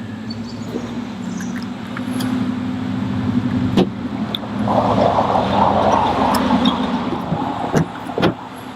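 A motor vehicle's engine runs with a steady low hum, swelling with a rush of noise in the middle, with a couple of sharp clicks.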